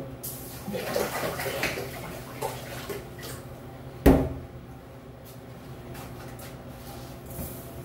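Stainless-steel kitchen sounds: water splashing and metal kitchenware clattering for the first few seconds, then one sharp metal knock about four seconds in, over a steady low hum.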